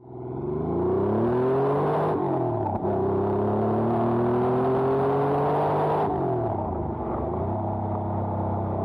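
1992 Porsche 911 Carrera 2's air-cooled 3.6-litre flat-six engine and exhaust pulling through the gears. Revs climb, drop at an upshift about two seconds in, then climb again. About six seconds in the throttle is lifted, and the revs fall away and settle to a steady cruise.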